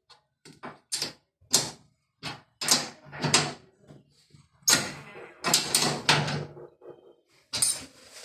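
A series of short knocks and clatters as the lock nuts on the washing machine's levelling feet are tightened by hand, busiest a little past the middle.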